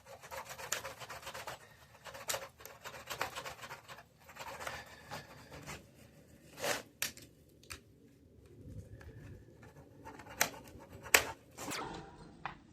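A hand tool scraping and rubbing over a stone tile in repeated short strokes, cleaning old grout and mortar off it. A few sharp knocks come about two-thirds of the way through and near the end.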